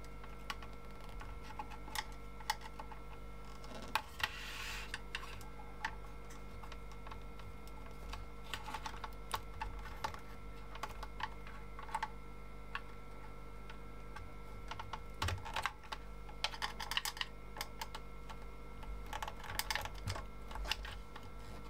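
Faint small plastic-and-metal clicks and scrapes, scattered and in short clusters, as tight wiring connectors are worked loose from an electronic instrument's circuit board, over a steady electrical hum.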